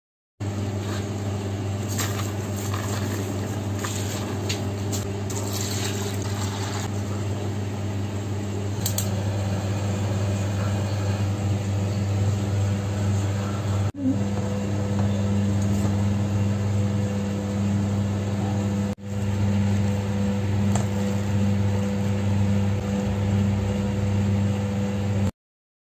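A steady low hum that runs on unchanged through the shots, with light crackling during the first several seconds and two brief dropouts about halfway through and a few seconds later.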